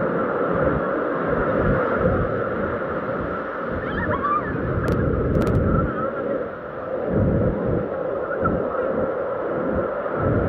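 Sea surf breaking and washing in around the shallows: a steady rush of water with an irregular low rumble that swells and dips.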